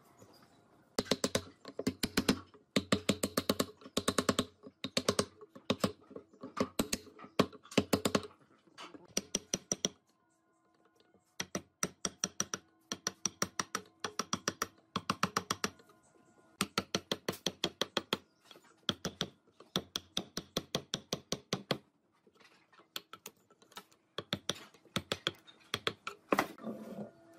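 A wood chisel being struck in quick runs of light taps, several a second, as it chops a slot into a slab of tree stump, with short pauses between the runs.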